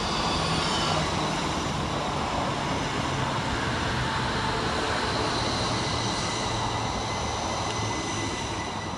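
Northern Class 333 electric multiple unit running past: steady rumble of wheels on rail with a faint high electric whine, easing off near the end as the train draws away.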